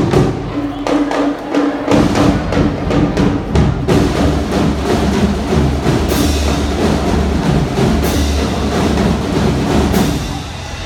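A marching drumline playing a fast, dense percussion cadence. Heavy bass drum strokes come in about four seconds in, with two bright crashes near the middle, and the playing drops off just before the end.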